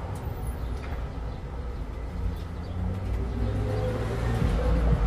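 Engine of a vehicle passing on the street below, a low rumble with a steady hum that gets louder toward the end.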